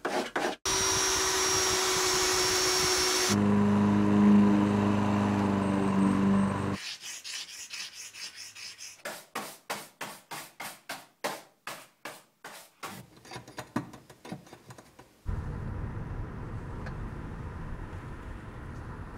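A run of short workshop and craft sounds: about three seconds of steady power-tool noise with a thin high whine, then a lower motor hum for a few seconds. Then come some eight seconds of quick rhythmic rubbing strokes, two to three a second, before a steady low rumble takes over near the end.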